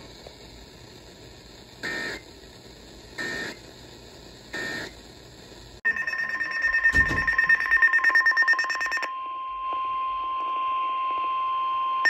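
Weather radio over its speaker: three short bursts of EAS digital data, about a second apart, marking the end of a warning message. About six seconds in, a NOAA Weather Radio alert sounds: rapid pulsing beeps over a steady 1050 Hz warning alarm tone. The beeps stop after about three seconds, leaving the steady tone alone.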